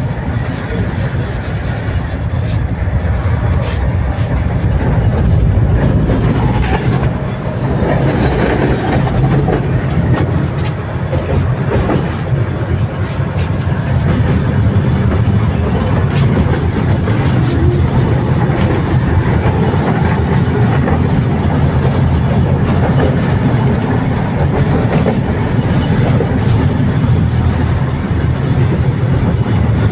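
Tatra T3SU tram running along the track: a steady, loud rumble of wheels and running gear, with clicks and clacks as the wheels pass over rail joints.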